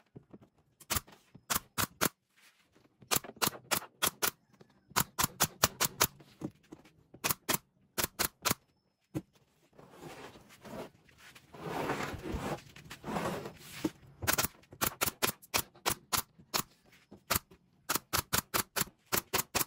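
Pneumatic brad nailer driving nails into a plywood panel: sharp shots, often several in quick succession. About halfway through there are a few seconds of wood scraping and shuffling as the panel is shifted.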